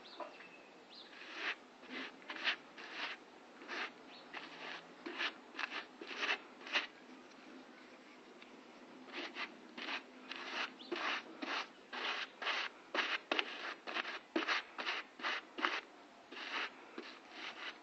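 Repeated short scraping strokes by hand, about two a second, with a pause of a couple of seconds around the middle.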